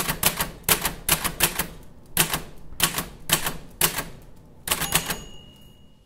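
Manual typewriter keys striking in irregular runs, about a dozen sharp clacks, with a steady high tone coming in near the end.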